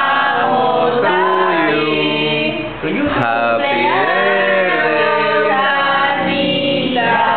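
A group of people singing together without instruments, several voices at once, with a brief pause for breath about three seconds in.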